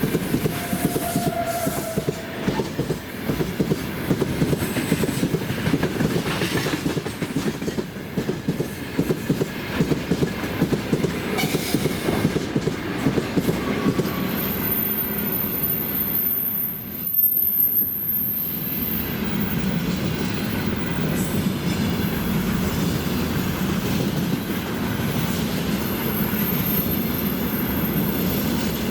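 Freight train wagons rolling past at speed, wheels clattering rhythmically over the rail joints. Partway through, a thin high wheel squeal comes in, and the clatter gives way to a steadier rolling rumble.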